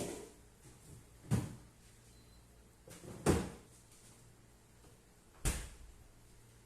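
Three sharp knocks about two seconds apart, each with a short ring, from things being handled and put down during kitchen work.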